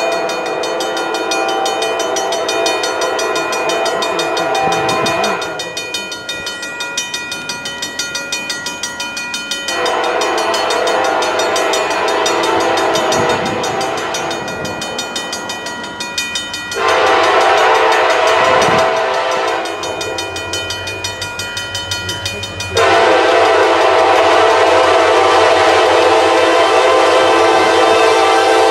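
A diesel freight locomotive's air horn, from the lead EMD SD70M-2, sounds the grade-crossing signal: two long blasts, a short one, then a final long blast that is still sounding at the end as the locomotives come close. The diesel engines run underneath.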